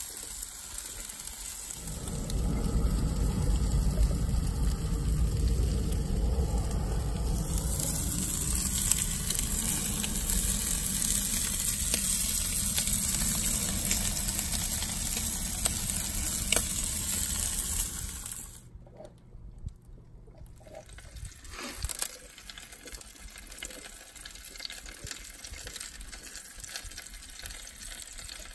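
Sausages sizzling in a cast-iron skillet at the mouth of a wood-fired oven, under a heavy low rumble that drops away suddenly a little after halfway; a quieter hiss with a few clicks follows.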